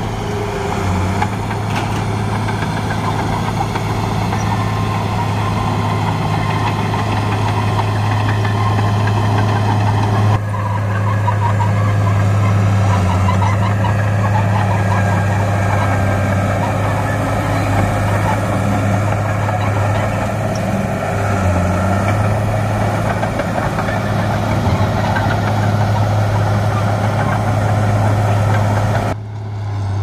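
Crawler bulldozer's diesel engine running steadily with a low drone as it pushes earth. The sound jumps abruptly about ten seconds in and drops suddenly near the end.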